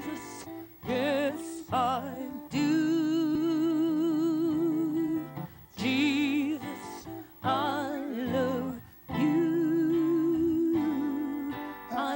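Gospel song between sung lines: guitar accompaniment under long, wordless held notes with vibrato, in several phrases separated by short breaks.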